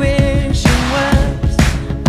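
Background music: an upbeat pop-funk track with a steady drum beat and a melody line.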